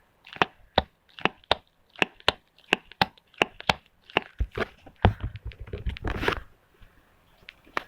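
A quick run of sharp clicks and taps, about three a second, from a hard turtle-shaped fidget toy being handled, followed about five seconds in by a short rustling scrape.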